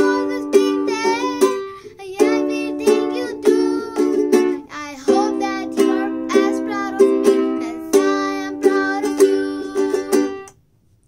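A child singing a song while strumming a ukulele in regular chords; the playing and singing stop together near the end.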